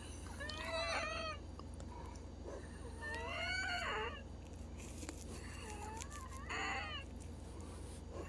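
Domestic cat meowing three times, a few seconds apart, each meow drawn out and rising then falling in pitch, over a steady low hum.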